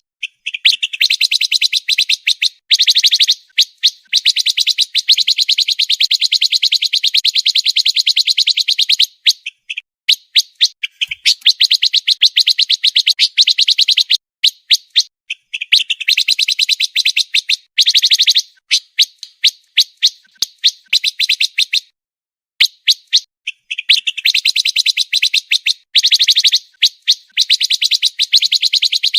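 Pancawarna bird singing fast, tightly packed trills of rapid high notes, in runs several seconds long broken by short pauses and single chirps.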